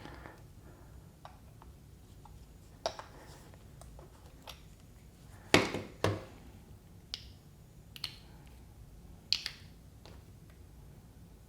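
Scattered sharp clicks and taps of hard plastic electric toothbrush parts being handled and fitted back together, with two louder knocks about halfway through.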